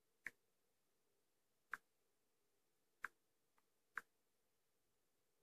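Touch clicks from a Samsung Galaxy S6 touchscreen as it is tapped through setup screens: four short, sharp clicks about a second apart, with a faint fifth just before the last.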